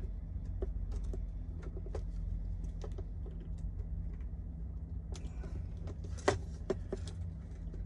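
Plastic RC truck parts clicking and knocking together as the Traxxas Revo's front skid plate is slid up over the front bulkhead onto its suspension pins. Small irregular clicks throughout, with the sharpest knock about six seconds in and a couple more just after.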